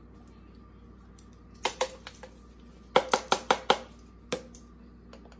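Sharp hard taps as a nearly empty spice container is knocked over a bowl to shake out the last of the onion powder: two about a second and a half in, then a quick run of five about three seconds in, and one more a little later.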